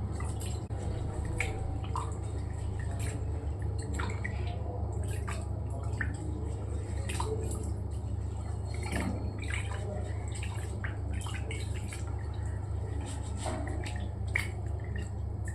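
Water being handled in a pot or basin: dripping and splashing with scattered light clicks and knocks, over a steady low hum.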